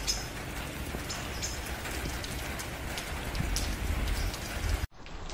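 Outdoor ambience: a steady hiss with wind rumbling on the microphone, and a few short, high bird chirps near the start and about a second and a half in.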